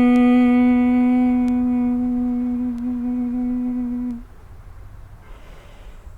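A woman's steady, held 'mmm' hum of bhramari (humming-bee) pranayama, one unbroken tone on the out-breath that stops about four seconds in, followed by a soft breath in through the nose before the next hum.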